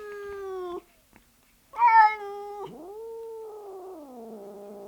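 Cat meowing: the end of one meow, a short second meow about two seconds in, then a long, lower drawn-out meow that rises and then slowly falls in pitch.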